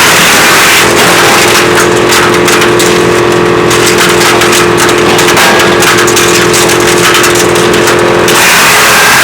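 WC 8 woodchipper running, driven by an engine, with a steady machine hum throughout. From about a second in until near the end its sound changes, the upper hiss dropping and turning irregular and crackly.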